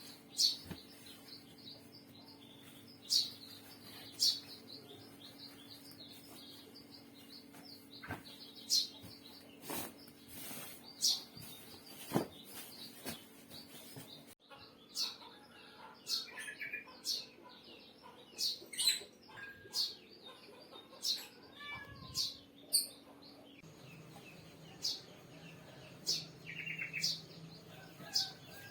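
Small birds chirping in short, repeated calls, with a few sharp knocks and a steady low hum underneath.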